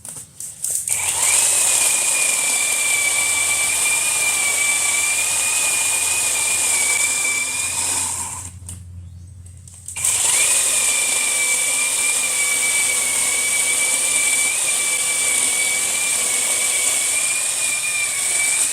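Battery-powered chainsaw's electric motor running with a steady high whine as it cuts brush wood. It runs for about seven seconds, stops for about two, then starts again and keeps going.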